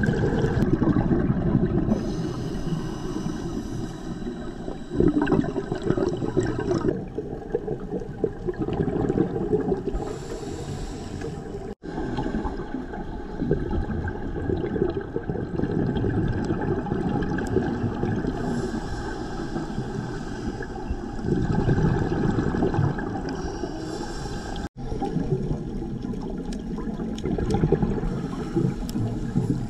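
Underwater sound picked up by a scuba diver's camera: a steady low rush of water with surges of gurgling exhaust bubbles every few seconds as the diver breathes out through the regulator. The sound drops out for an instant twice.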